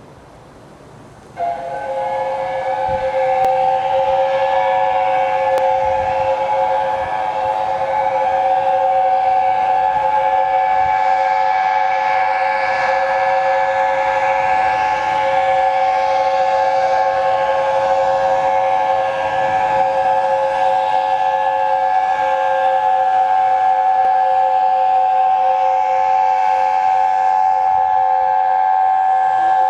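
Chime whistle of the LNER Peppercorn A1 Pacific steam locomotive 60163 Tornado, sounded in one long unbroken blast. The chord of several notes starts suddenly about a second and a half in and is held steady.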